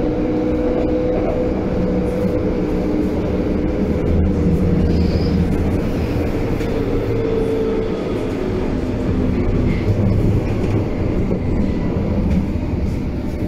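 Berlin U-Bahn Baureihe H (H97) train heard from inside the passenger car: a steady rumble of wheels on track, with the drive's whine drifting in pitch.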